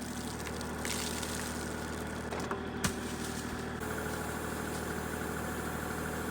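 Kubota compact tractor's diesel engine idling steadily, with one sharp click about three seconds in.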